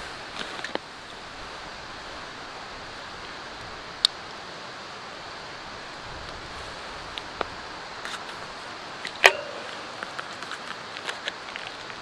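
Plastic food wrapping crinkling and being handled, with scattered small clicks and knocks: a sharp click about four seconds in and a louder knock a little after nine seconds, over a steady background hiss.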